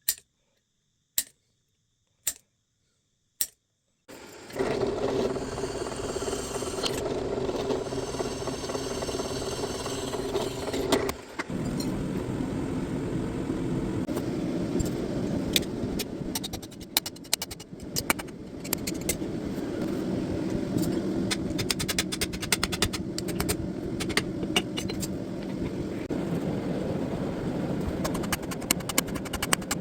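Blacksmith forging: four separate sharp metal strikes about a second apart, then a steady forge noise under irregular hammer blows on steel, coming faster near the end.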